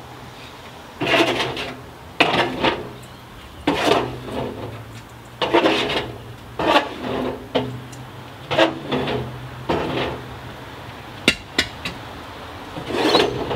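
A steel rod scraping and knocking against the inside of a steel-drum furnace as it rakes through dross and molten aluminium. It makes about a dozen irregular strokes over a steady low hum.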